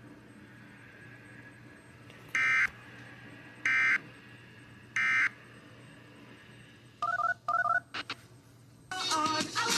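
Emergency Alert System end-of-message code: three short bursts of screechy SAME data tones, about 1.3 s apart, closing the warning. Two short electronic beeps follow, and music starts near the end.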